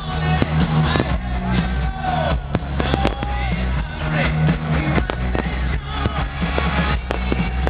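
Loud music with a steady heavy bass, amplified over a public address, with scattered firework bangs cutting through it at irregular intervals.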